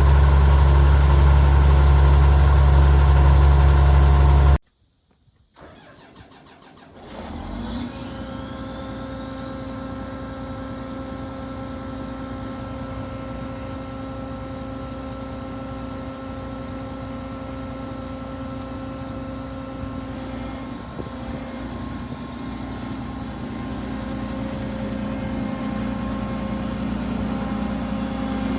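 Combine harvester diesel engine running loud and deep, cut off abruptly; then another combine's diesel is cranked, catches on a cold start and settles into a steady idle, with a faint whine that slowly rises in pitch and gets a little louder toward the end.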